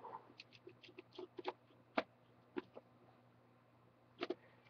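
Faint, irregular small clicks and scratches of a precision screwdriver turning a tiny screw in a laptop's plastic screen bezel, with a slightly louder pair of clicks a little after four seconds.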